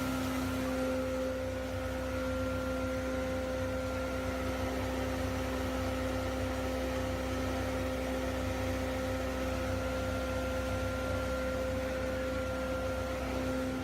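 Ultrafine powder mill machine running steadily: an even machine hum with a few constant tones over a low rumble, unchanging throughout.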